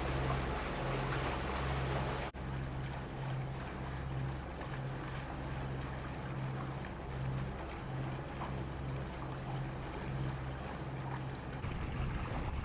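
A catamaran's twin diesel engines running steadily under way, with a low hum that throbs in an even beat about one and a half times a second, over a hiss of wind and water. The sound cuts out for an instant a couple of seconds in.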